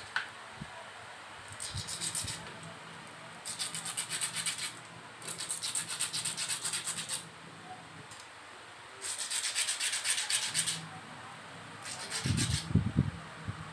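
Something being sharpened on a sheet of sandpaper: quick back-and-forth scraping strokes, several a second, in five bursts of one to two seconds each with short pauses between.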